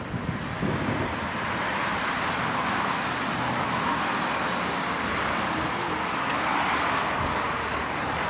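Steady rushing noise of road traffic, an even hiss with no clear engine note.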